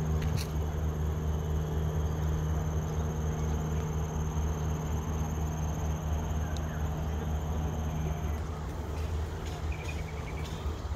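Outdoor garden ambience: a thin, steady high insect drone over a low rumble, with a short run of quick high chirps near the end.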